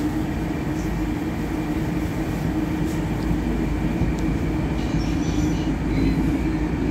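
Moscow Metro train heard from inside the car: a steady hum and rumble with a constant droning tone.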